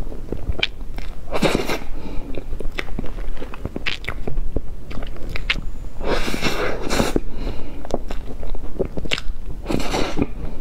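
Close-miked mouth sounds of eating soft frosted sponge cake off a spoon: wet lip smacks and chewing clicks, with a few longer breathy sounds, the longest about six seconds in.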